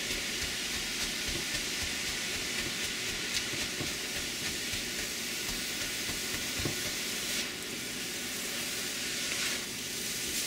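Cauliflower rice with egg and vegetables sizzling steadily in a wok while a slotted spatula stirs and scrapes through it, with occasional light scrapes and taps over the sizzle.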